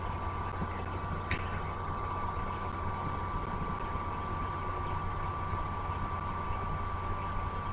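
Steady low hum and hiss with a thin, unchanging whine, and one brief high chirp about a second in.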